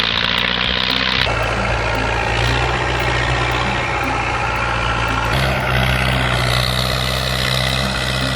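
Tractor engine running steadily with a low, heavy tone. It changes abruptly about a second in and again about five seconds in, as separate recordings are joined.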